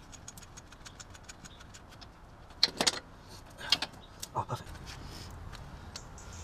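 Metal motorcycle drive chain clinking and rattling as it is handled and fed around the sprocket: quick light ticking at first, then two louder metallic clanks about a third and half-way through, and a couple of softer knocks after.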